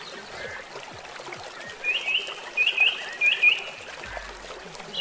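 A small bird chirping in three quick pairs of short notes from about two seconds in, over a steady trickling hiss.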